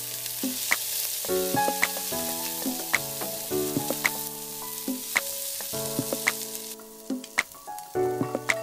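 Chopped onions sizzling in hot oil in a stainless steel pot while being stirred with a wooden spoon. The sizzle drops off somewhat for the last couple of seconds.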